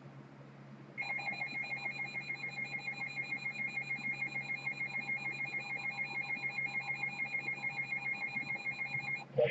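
Emergency alert tone from an alert receiver: a high-pitched, rapidly pulsing alarm tone that starts about a second in, runs for about eight seconds and stops abruptly with a click near the end.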